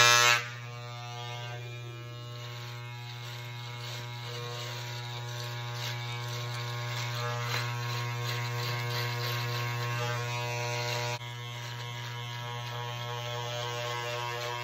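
Wahl electric hair clippers running with a steady buzz while shaving off a beard, loudest in the first half-second.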